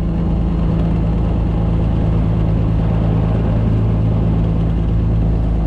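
Beechcraft A36 Bonanza's big-bore Continental six-cylinder engine idling steadily after start, heard from inside the cabin.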